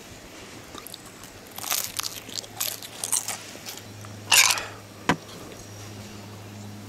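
Bites into a crisp deep-fried spring roll wrapper, a run of close crunches over a couple of seconds, the loudest a bit over four seconds in. A single sharp click follows about a second later.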